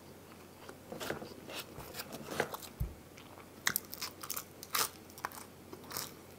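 A person biting and chewing a piece of pizza close to the microphone: crunches and mouth clicks start about a second in, and the loudest cluster of crunches comes a little past the middle.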